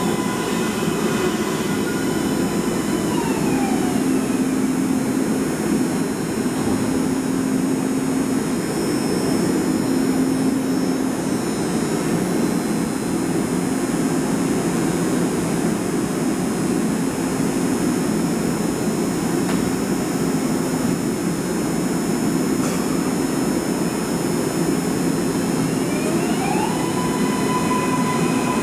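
MARTA rapid-transit train pulling slowly into an underground station. It runs with a steady hum, and its high whining tones slide down in pitch a few seconds in and rise again near the end.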